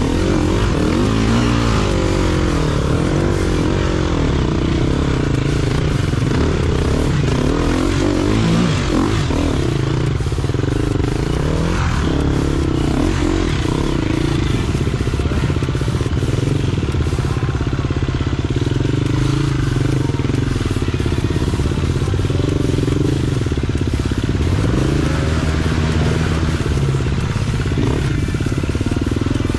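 Dirt bike engine revving up and down while riding a trail, its pitch rising and falling every second or so over a steady rushing noise.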